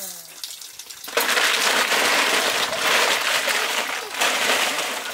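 A loud, steady hiss that starts suddenly about a second in and runs for about four seconds.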